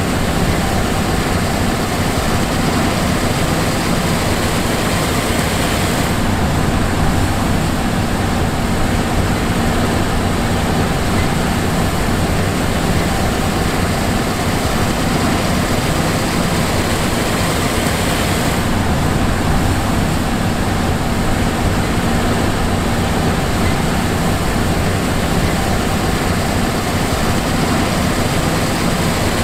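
John Deere S780 combine harvester running, a steady, unchanging drone of diesel engine and machinery.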